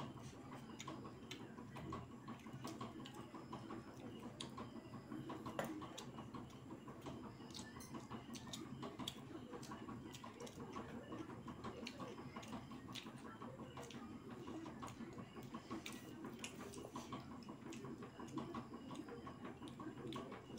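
Two people eating egg biryani with their hands: faint chewing and lip smacks, with many small scattered mouth clicks and fingers working the rice on the plates, over a low steady hum.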